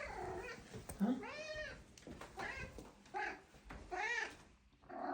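Domestic cat meowing four times in a row, each meow rising then falling in pitch, the first the longest.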